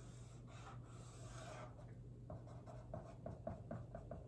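Marker pen writing on a whiteboard, faint: a couple of longer strokes drawing the lines of a box, then about two seconds in a quick run of short strokes, about five a second, as letters are written.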